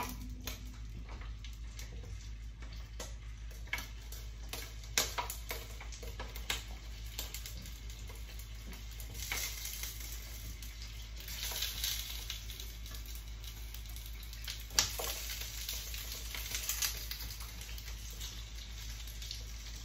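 Whole jalapeño and serrano chiles sizzling as they are dropped one by one into hot avocado oil in a pan, with clicks of kitchen tongs against the pan. The sizzle comes in swells as more chiles go into the oil.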